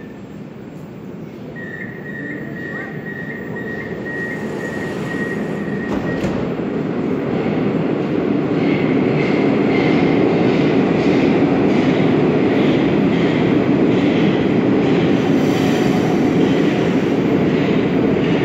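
Moscow metro 81-765.3 'Moskva' train pulling out of the station: running noise that builds over the first several seconds and then holds steady, with a high whine coming in about halfway through.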